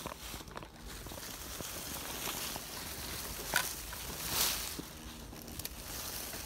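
HB ZP1001 RC crawler (a TRX4 clone) driving through dry fallen leaves, the leaves rustling and crackling under its tyres, with a sharp crack a little past halfway through.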